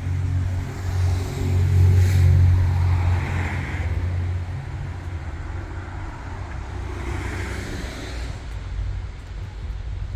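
City street traffic: a heavy engine rumbling close by, loudest about two seconds in, and vehicles passing with two swells of road noise.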